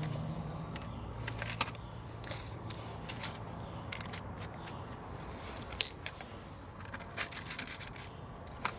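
Scattered light metallic clicks and clinks of screws and driver bits being handled on a wooden workbench, and the keyless chuck of a cordless drill being turned by hand. A low hum fades out about a second in.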